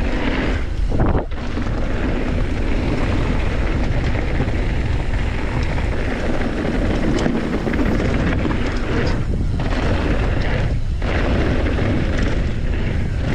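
Wind rushing over the microphone and mountain bike tyres rolling fast over a packed-dirt flow trail, a loud steady rush with a few brief lulls.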